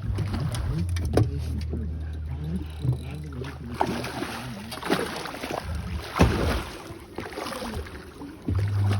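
Boat motor running with a low steady hum for the first few seconds, then a series of irregular knocks and thumps aboard the boat.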